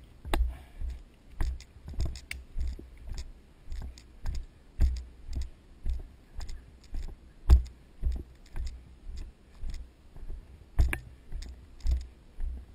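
Footsteps of a player walking on a grassy woodland trail, picked up by a camera worn on the body: low thuds about twice a second, with light clicks and rattles from the gear at each step.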